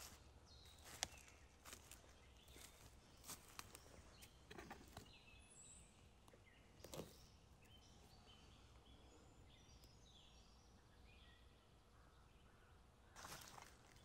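Faint footsteps crunching through dry leaf litter on a forest floor, with a sharp crack about a second in, stopping for a while and starting again near the end. In the pause, faint birdsong of short high chirps.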